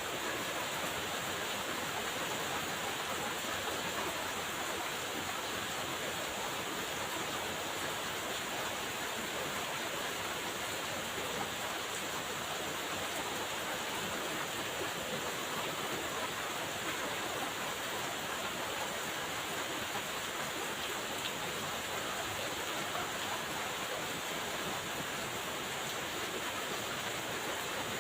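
Steady rain falling, a constant even hiss without pauses or changes.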